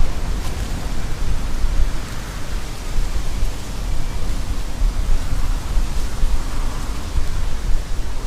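Wind buffeting the camera microphone: a loud rushing rumble that rises and falls in gusts.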